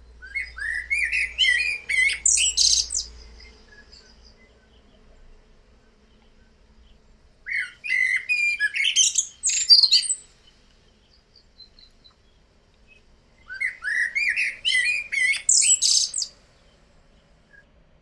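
Eurasian blackbird singing three phrases a few seconds apart, each opening with low, fluted, warbling notes and ending in a high, squeaky twitter.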